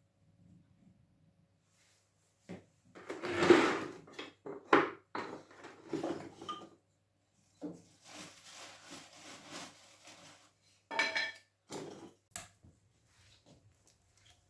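Irregular clanking and knocking of metal and wood as a cast-iron wood stove is tended, with one metallic strike that rings briefly about eleven seconds in.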